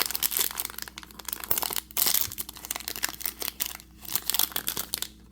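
Crinkling and tearing of a blind-bag figure's wrapper, unwrapped by hand in quick irregular crackles that thin out near the end.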